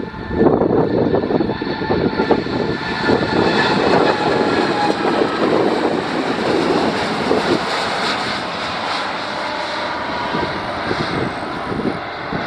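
Boeing 787-8's twin Rolls-Royce Trent 1000 turbofans at takeoff thrust: a loud, steady jet engine noise with several high whining tones, with wind buffeting the microphone.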